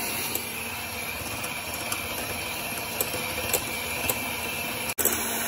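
Electric mixer running steadily at medium speed, whipping egg whites with sugar. The sound cuts out for an instant near the end.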